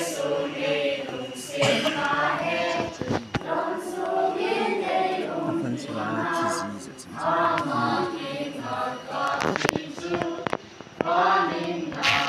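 A group of children and teenagers singing together as a choir.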